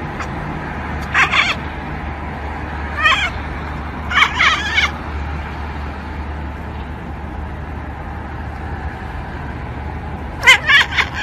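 A cat meowing in short, high-pitched calls: one about a second in, a few between three and five seconds in, and a quick cluster near the end, over a steady low hum.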